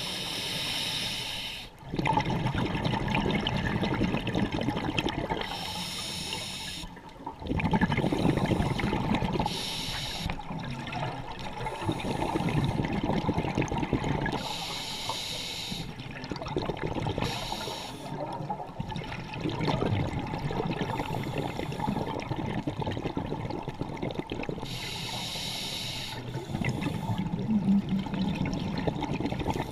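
Scuba diver breathing through a regulator underwater: a short hiss on each inhale, then a longer low burble of exhaled bubbles, repeating every few seconds.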